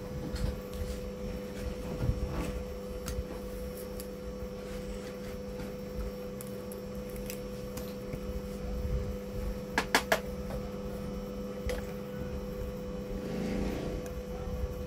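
Steady electrical hum with a constant mid-pitched tone, from bench equipment. It is overlaid by scattered light clicks and taps, including a quick run of three sharp clicks about ten seconds in.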